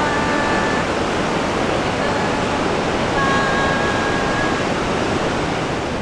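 Steady rushing noise of sea surf breaking on the beach.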